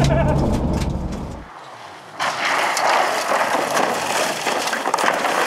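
A rally car's engine running, heard from inside the car, fades away within the first second and a half. After a brief lull, from about two seconds in, a harsh crunching, crackling noise of gravel as a Peugeot 309 rally car slides sideways across the gravel road, stones and dirt spraying from under it.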